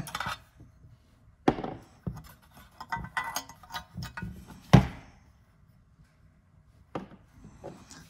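Metal parts being handled: a cigarette lighter socket fitted into a metal ashtray housing, with rubbing and scattered clicks and knocks, the sharpest a little under five seconds in, and a quieter stretch after it.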